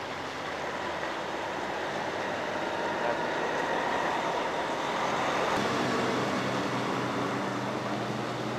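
A vehicle engine running, with noise that swells about halfway through and then settles into a steady low engine hum.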